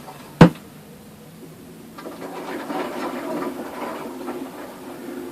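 Samsung washing machine in its spin cycle with a load of duvets: a single sharp knock about half a second in, then from about two seconds in the drum turns with a rhythmic rattling clatter that grows louder.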